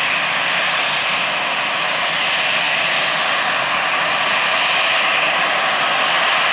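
Airliner engines running, a loud steady noise with no changes in pitch.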